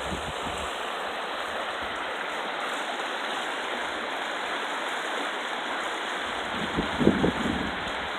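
Shallow mountain stream rushing steadily over a rocky bed. A brief low rumble comes about seven seconds in.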